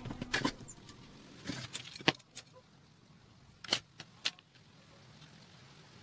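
Scattered light clicks and knocks of bamboo cage parts being handled and fitted together, about half a dozen spread over a few seconds.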